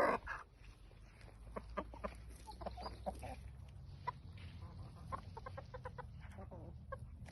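Chickens clucking: a scattering of short clucks, some in quick runs of several, over a low steady hum.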